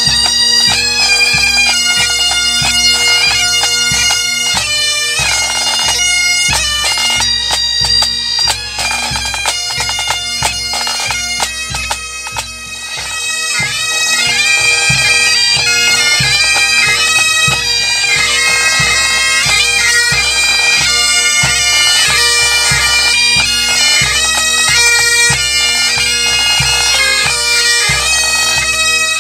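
A pipe band marching and playing: Highland bagpipes sound a tune over their steady drone, with snare and bass drums keeping the beat. The sound dips briefly a little before halfway, then comes back to full strength.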